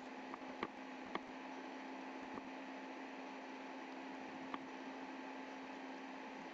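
Room tone from the recording setup: a steady faint hiss with a low mains-type hum. A few faint short clicks sound in the first couple of seconds and once more past four seconds.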